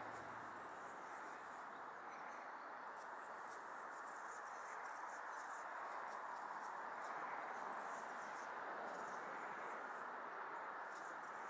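Steady background hiss of ambient noise, with faint, very high ticks or chirps scattered through it.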